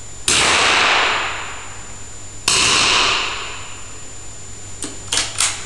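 Two .22 target-rifle shots about two seconds apart, each ringing on in the small indoor range before fading, then a few light clicks near the end.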